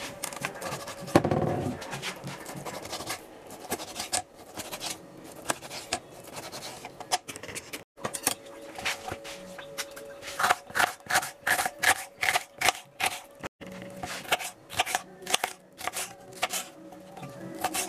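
Kitchen knife cutting on a plastic cutting board: sharp taps and strokes as it slices through raw pork and then chops bell pepper, with a quick run of chopping taps in the second half.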